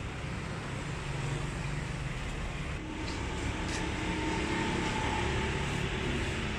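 Steady low rumble of street traffic, with a faint engine hum joining about three seconds in.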